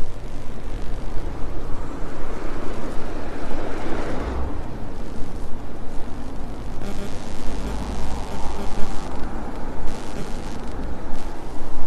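Wind rumbling on the microphone of a bicycle ride, over road traffic; a vehicle passes, swelling and dropping away about four seconds in.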